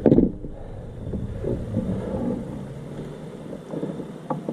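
Low rumble of wind and handling noise on the microphone aboard a kayak, with a short knock near the end.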